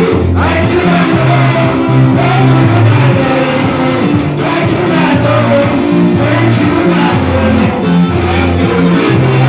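Band music with a steady beat: bass, guitar and drums, with singing.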